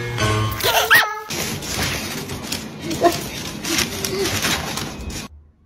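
Cat calls: a short rising-and-falling meow about a second in, then a few brief low calls over a stretch of crackling, rustling noise that cuts off suddenly near the end.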